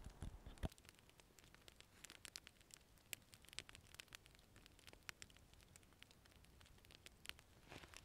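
Faint, irregular crackling and ticking of a small wood campfire, a few sharper pops near the start.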